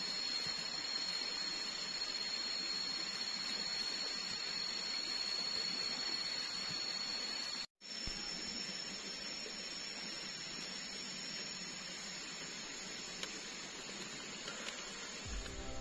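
Tropical forest ambience: a steady hiss of background noise with a thin, steady high-pitched insect drone over it. It cuts out for an instant about eight seconds in, then resumes with a slightly different high tone.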